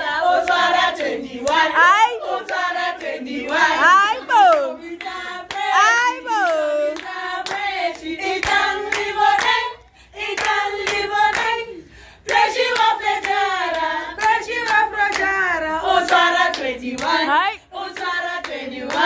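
A group of people singing together, with steady rhythmic hand clapping. The singing breaks off briefly twice near the middle.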